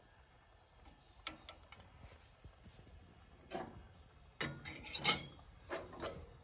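Spoon and stainless steel coffee percolator clinking and clanking as grounds are spooned into its basket and its parts are handled: a few light taps early on, then louder metal clanks, the loudest about five seconds in.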